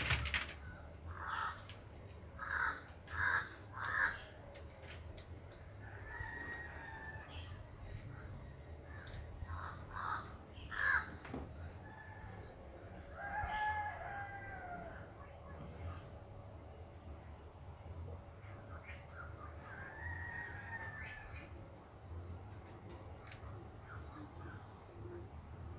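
Faint bird calls: a few short calls, then several longer rising-and-falling cries, over a faint regular high ticking about twice a second.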